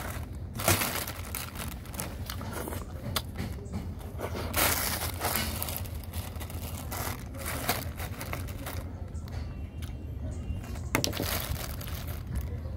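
Thin clear plastic bags crinkling and rustling in irregular bursts as hands open and handle them, over a low steady hum.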